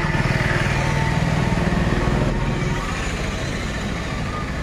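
A small engine running steadily with a fast, even beat, a little louder in the first two seconds or so and then easing off slightly.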